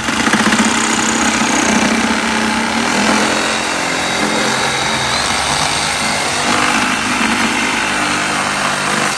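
Milwaukee M18 Fuel Hackzall (2719-20) cordless one-handed reciprocating saw cutting through a wooden board, its blade buzzing steadily through the wood. The saw starts abruptly and runs without a break.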